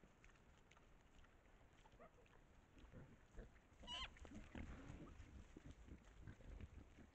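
Faint grunting and scuffling of wild hogs feeding, with one brief squeal about four seconds in.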